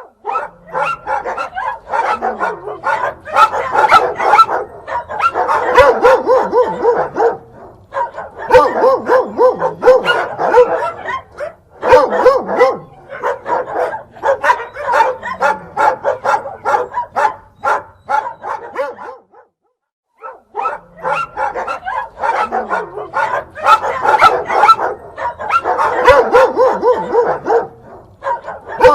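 Dog and puppy barking and yipping in a rapid, dense run of calls, with two short pauses, about a third and two-thirds of the way through.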